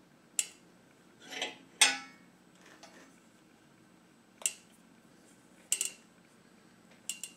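Thin sheet-metal winch mounting plate clamped in a bench vise, clinking and clanking as it is pushed and bent by hand to work the wrinkles out. About six sharp metallic clinks at irregular intervals, the loudest about two seconds in.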